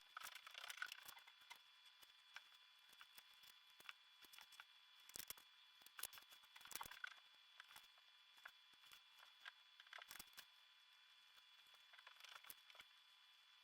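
Faint, irregular scratching and ticking of brush-pen tips on Bristol paper during inking, over a faint steady high whine.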